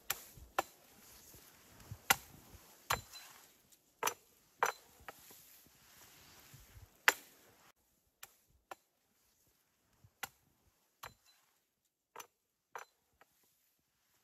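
Sharp, irregular cracks and snaps of wood as branches are handled and broken, with a faint hiss behind them. After about eight seconds the hiss drops out and only scattered, quieter clicks remain.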